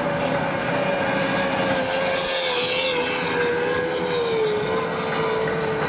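Waterski race boat's engine running flat out as the boat passes, a steady high engine note that slowly sinks in pitch, with a small dip a little past four seconds in.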